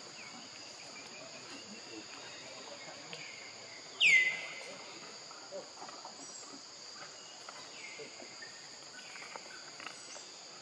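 Steady high-pitched chorus of insects, like cicadas or crickets, with a loud short call sweeping down in pitch about four seconds in and several fainter calls like it later on.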